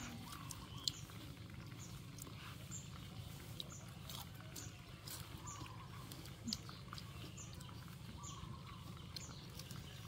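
Faint background with a short high chirp repeating steadily, a little under twice a second, from a small animal, over a low steady hum, with a few soft clicks.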